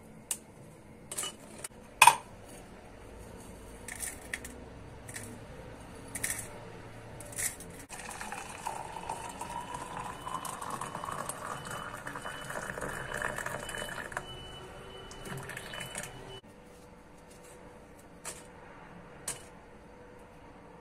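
Walnut shells cracking and being picked apart by hand in sharp clicks and snaps, the loudest about two seconds in. Then boiled water is poured from a steel pot into a glass French press for about eight seconds, the pitch rising as it fills. Near the end come two light clicks of a knife cutting a strawberry.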